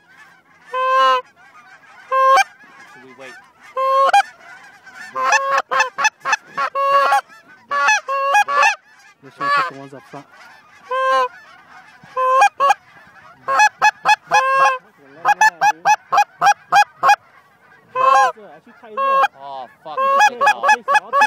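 Canada goose honks: a long series of short, loud honks and clucks, coming in quick runs, fastest about two-thirds of the way through.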